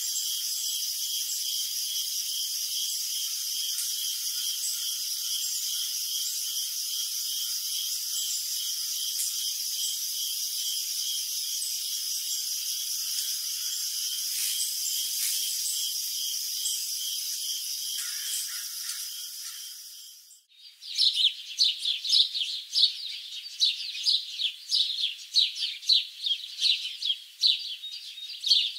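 A steady, high-pitched chorus pulsing about twice a second. About twenty seconds in it cuts off and gives way to many birds chirping and singing, a busy morning bird chorus.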